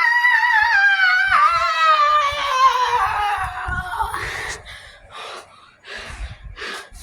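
A long, high-pitched scream, wavering and falling slowly in pitch, that fades out about four seconds in, followed by a few short, softer noises.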